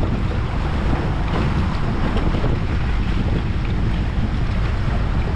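Wind buffeting the microphone in a steady low rumble, with choppy water splashing around a small boat as it moves through waves.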